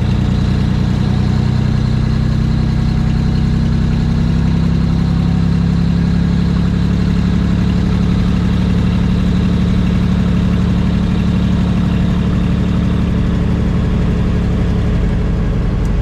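Brockway semi truck's engine running steadily while the truck is driven, heard from inside the cab as a constant low drone.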